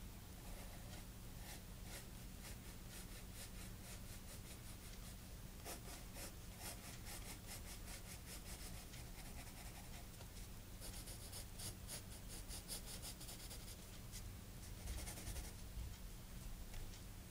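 Pencil scratching on sketchbook paper in many short strokes, with a couple of longer, denser runs of scratching past the middle, faint.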